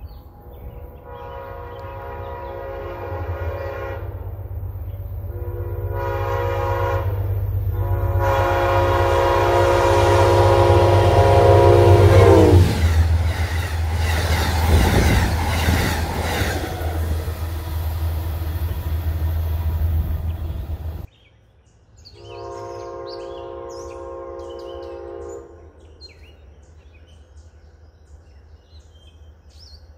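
A locomotive horn sounds three blasts, the last one long and dropping in pitch as the train passes. The train then rumbles by with rail clatter until the sound cuts off suddenly. After the cut, a fainter single horn blast sounds from another train, followed by birds chirping.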